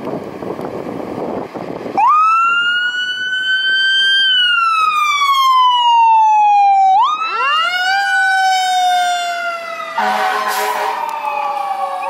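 Fire engine pulling out: a couple of seconds of vehicle rumble, then an electronic siren starts a wail that rises and falls. About seven seconds in a second, lower siren winds up and slowly winds down under further siren sweeps, and about ten seconds in a short air horn blast sounds over the sirens.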